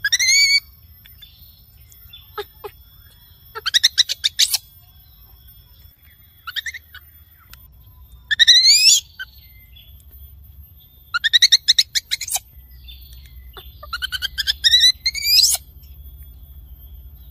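Baby macaque screaming in about six short bursts of shrill, high-pitched calls, two to three seconds apart, some of them sweeping upward in pitch. These are a young monkey's calls for its mother.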